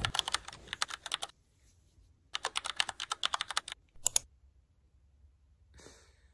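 Typing on a keyboard: two quick runs of keystrokes about a second long each, then a short burst of a few taps.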